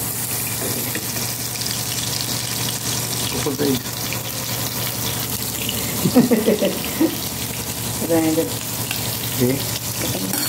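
Bacon sizzling steadily in a frying pan, with a few faint voices in the background.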